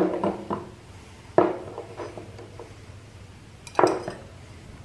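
Small steel brackets, screws and washers clinking against each other and the workbench as they are picked up and handled: a few sharp metallic clinks at the start, another about a second and a half in, and one more near four seconds.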